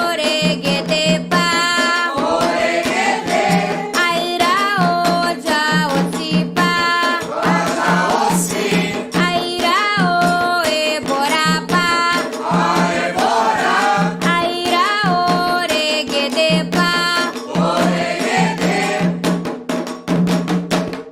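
Candomblé chant for Xangô: voices singing a call-and-response song over drums and percussion. The music stops at the very end.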